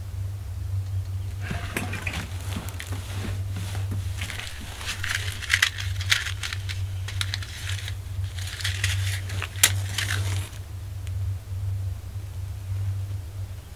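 Hands crumpling dry tinder to light a wood stove, in three crinkling, crackling bursts with sharp clicks, over a steady low hum.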